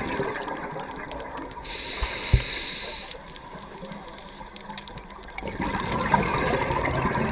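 Scuba diver breathing through a regulator underwater: a gurgling rush of exhaled bubbles, a hissing inhalation about two seconds in with a couple of low knocks, then another long burst of exhaled bubbles from about five and a half seconds.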